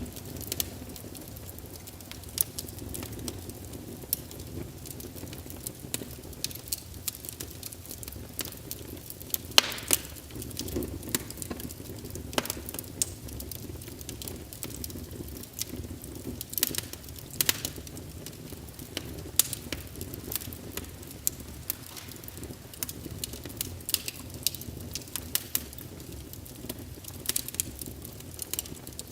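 Fire in a fireplace crackling: irregular sharp pops and snaps over a low, steady rush of flame, with one louder pop about ten seconds in.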